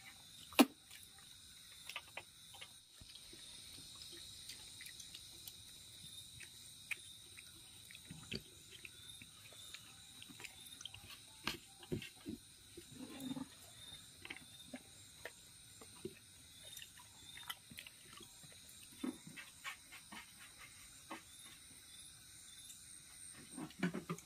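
Quiet sounds of a meal eaten by hand: fingers scooping and pressing rice on steel and plastic plates, with scattered light clicks and taps and some chewing. A sharp click comes about half a second in, and a steady high-pitched hum runs underneath.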